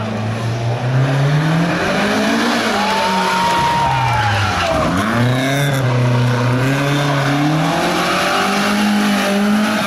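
Classic car's engine revving hard under acceleration. The pitch climbs, drops sharply about four and a half seconds in, then climbs steadily again, with a tyre squeal in the middle.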